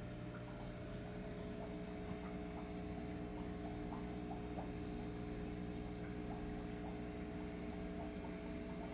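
Steady low hum of running aquarium equipment, with a faint bubbling of water.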